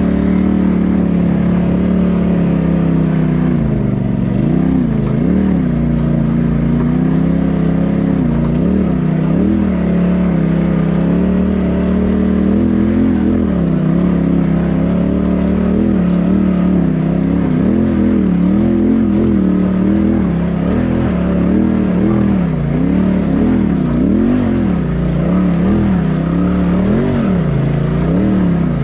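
Side-by-side UTV engine heard from the cockpit, revving up and down over and over with short throttle blips while the machine crawls a rough dirt trail.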